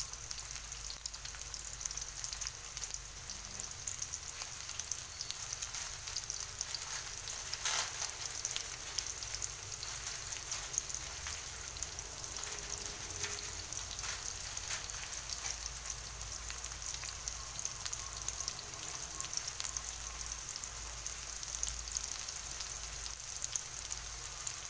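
Chopped onion and garlic sizzling in oil in a wok on fairly high heat, a steady sizzle with fine crackles as they cook down toward soft and brown. One sharper clack about eight seconds in.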